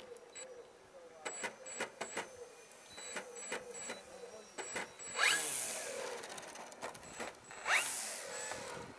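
Electric RC plane's brushless motor (Power 25) and propeller ticking over at low throttle, then spooled up twice, about five and seven and a half seconds in, for the takeoff roll. Each run-up is a steeply rising whine with a rush of prop wash that eases off.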